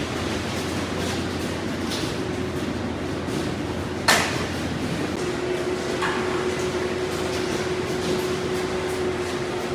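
Steady mechanical hum with one sharp knock about four seconds in and a couple of fainter clicks.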